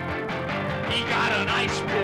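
Punk rock band playing, with electric guitars and steady drums.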